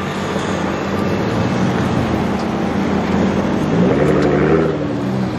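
Nissan GT-R R35's twin-turbo V6 running at low revs as the car pulls away slowly, with a short rise in revs about four seconds in.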